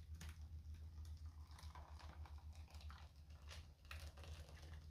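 Near silence: thick batter pouring from a glass bowl into a parchment-lined baking pan, faint soft ticks and crinkles over a low steady hum.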